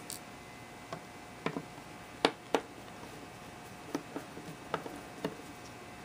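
Small screwdriver backing Phillips screws out of a linear glass-scale rail's aluminium end block: light, irregular metal clicks and ticks of the bit and screws, about a dozen in all, the sharpest a little after two seconds in.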